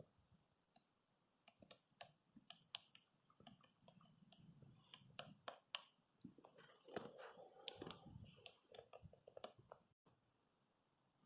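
Woodpecker pecking: faint, irregular sharp taps, now single, now in quick runs, busiest around seven to eight seconds in.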